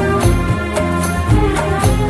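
Background music with a steady beat: an Indian film-style song track.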